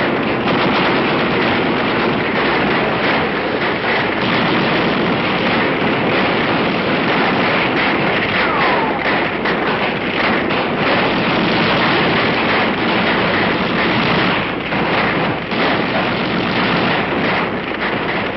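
Village huts burning: a dense, steady crackling and popping of fire over a rushing roar.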